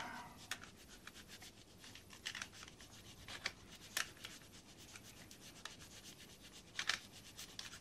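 Faint rubbing and scraping of a thin glue applicator worked along the joints of a laser-cut model wagon frame, with scattered light ticks and a couple of sharper clicks.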